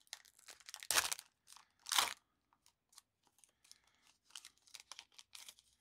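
Foil-lined wrapper of a Panini Prizm football card pack being torn open by hand: two loud rips about one and two seconds in, then softer crinkling of the wrapper.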